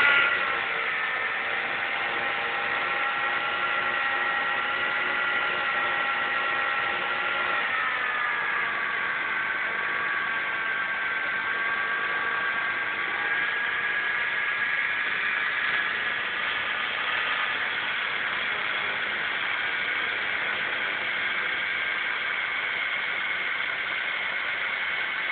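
Small scooter engine held at high revs in a steady whine while its rear wheel spins on paving stones in a burnout; the pitch sags a little about eight seconds in and then holds.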